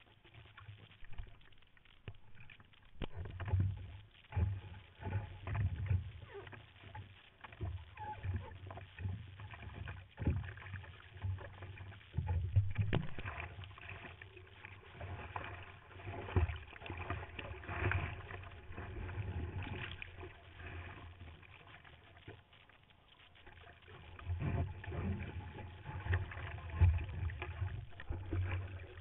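Sea water sloshing and splashing against a surfboard, with irregular low thuds as water slaps the board.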